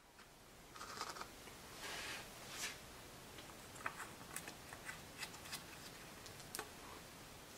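Faint handling rustles, then a scatter of small sharp clicks as a plastic oil-fill cap is screwed onto an air compressor pump's fill port.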